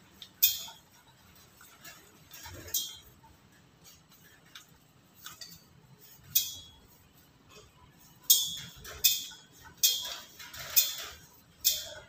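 A black-capped lory's beak clinking and knocking against its hanging plastic feeding cup as it feeds: about eight sharp, high clicks at irregular intervals, most of them coming quickly together in the last few seconds.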